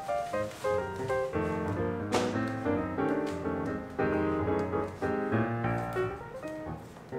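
Background music: a keyboard melody of short, stepping notes over a low bass line.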